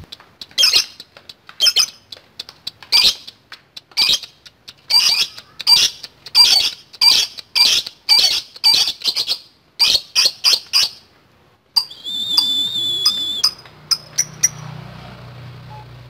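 Fischer's lovebird giving a run of short, sharp, high calls, about two a second at first and quickening to about three a second. After a pause of about a second comes a steady whistle-like tone lasting a second and a half.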